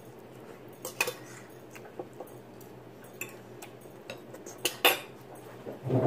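Scattered light clicks and clinks against a dinner plate as baked chicken is picked apart by hand, the sharpest a quick pair about a second before the end, over a low steady hum.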